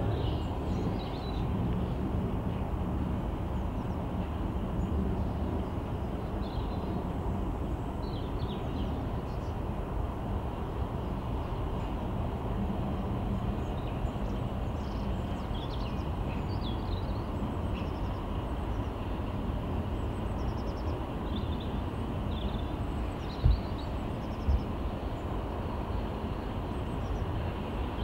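Distant steam locomotive working its train, a steady low rumble, with small birds chirping over it. Two sharp thumps about a second apart near the end.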